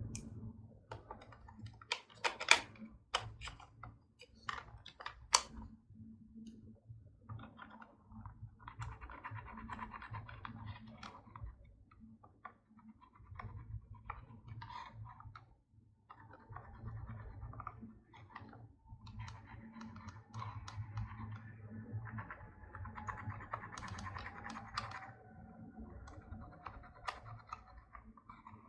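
Slime being squished and kneaded by hand, giving sharp sticky clicks and pops, with a few louder snaps about two to five seconds in.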